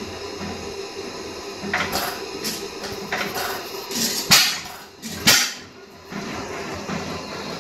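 1910 Allan Brothers 3 hp single-cylinder lamp-oil (kerosene) stationary engine with continuous-lamp ignition running, its gudgeon pin bush freshly repaired. A steady mechanical clatter, broken by a handful of sharp louder bangs in the middle, the two loudest about a second apart.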